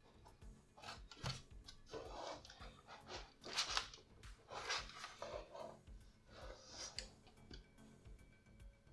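Small plastic model parts and cables being handled and rubbed against each other: a string of short, irregular scraping and rustling noises.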